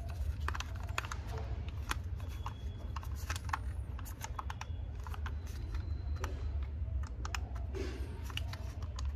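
Irregular light clicks and taps, several a second, over a steady low hum.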